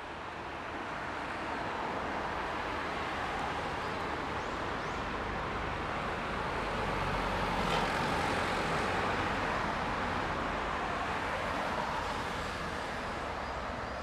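Steady road-traffic noise with a low rumble, fading in over the first couple of seconds and swelling slightly around the middle.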